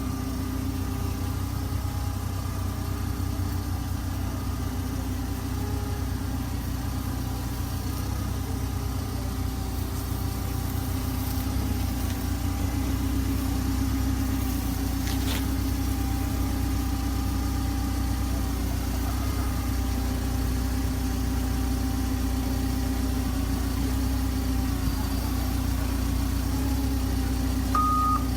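A machine running steadily: a continuous low hum with several steady tones, getting slightly louder about halfway through.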